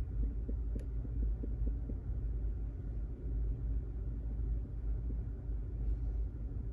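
Steady low rumble, with faint small ticks of a lock pick working the pin stack of a pin-tumbler lock during the first couple of seconds.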